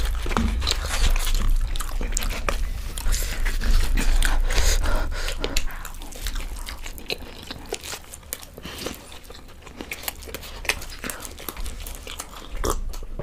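Close-up chewing and biting of muli paratha and aloo methi sabzi eaten by hand: a dense run of small mouth clicks, busier in the first half and softer from about halfway.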